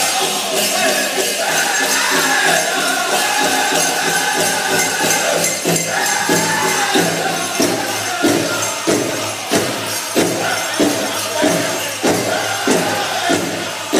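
Powwow drum group singing a chicken dance song over a big drum struck in unison, with the dancers' bells jingling. Past the middle the drumbeats stand out strong and even, about three every two seconds.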